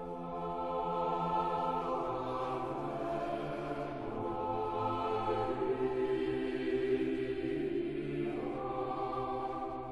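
A choir singing slow sacred chant in long, sustained notes that move gently from one pitch to the next.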